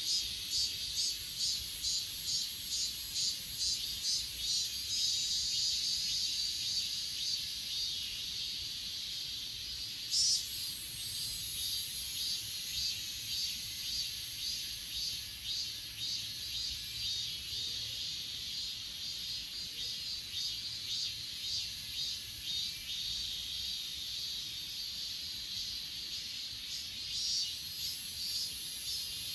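Chorus of grass insects such as crickets and katydids: repeated pulsing chirps over a steady high-pitched shrill trill, which grows louder about ten seconds in and again near the end.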